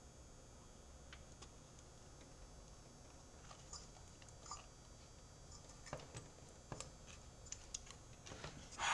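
Scattered small clicks and taps of fingers working a front-panel power-switch connector onto motherboard header pins, sparse at first and more frequent from about halfway, over a faint steady background hum.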